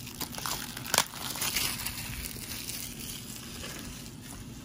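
Rustling and crinkling of packaging as a cardboard slipcover is slid off a plastic 4K Blu-ray case, with one sharp click about a second in.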